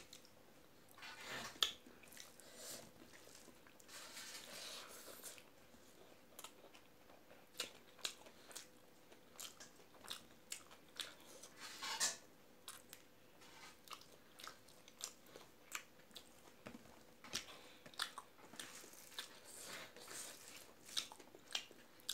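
A person eating rice and curry by hand, close to the microphone: chewing and lip smacks heard as faint, short, irregular clicks, with a couple of louder ones shortly after the start and about halfway through.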